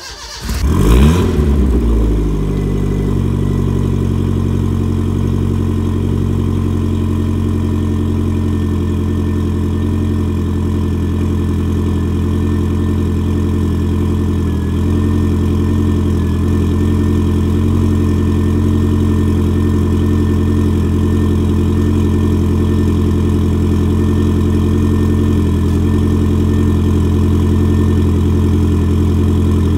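Ford Fiesta RS Turbo's turbocharged 1.6-litre CVH four-cylinder cranking briefly and catching about a second in, then settling into a steady idle at the tailpipe. It is a cold first start after six months standing, on a freshly fitted battery.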